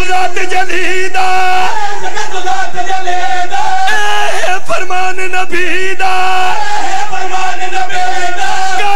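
A man chanting loudly into a microphone in long, held melodic phrases, with a crowd's voices behind him.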